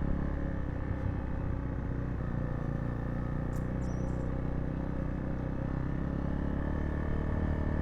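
Zontes T2 350 single-cylinder motorcycle engine running steadily at low speed on a dirt trail. A short high chirp sounds about three and a half seconds in.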